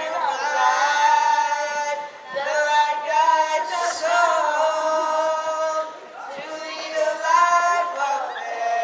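A young singer singing a song into a handheld microphone, holding long notes in phrases of about two seconds each.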